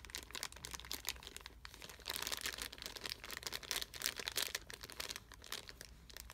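Clear plastic zip-lock bag of ink sample vials crinkling as it is handled and turned over, a faint, irregular crackle that gets busier about two seconds in.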